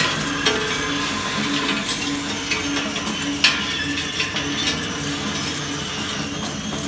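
Enerpat scrap metal shredder running, its rotating cutter discs catching and chewing loose strands of thin wire: a steady machine hum with scattered sharp metallic clicks, the loudest about three and a half seconds in.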